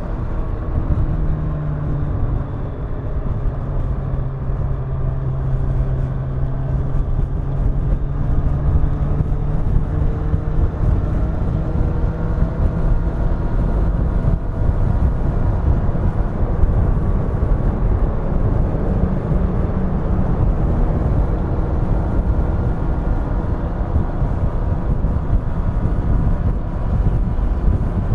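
Kawasaki Ninja 1000's inline-four engine and exhaust at a steady expressway cruise, its pitch drifting slowly up and down with small changes of throttle, over a heavy rumble of wind and road.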